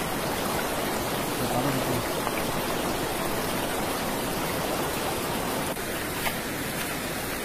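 Steady rushing of a shallow river flowing over rocks.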